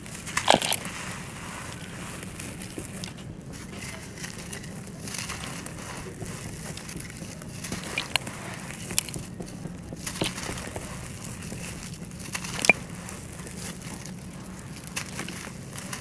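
Soft, dry, gritty sand-clay blocks being crushed and crumbled by hand, with a steady crunchy crackle of grit pouring onto the blocks below. Sharp cracks sound where chunks break, the loudest about half a second in and others near 9 and 13 seconds.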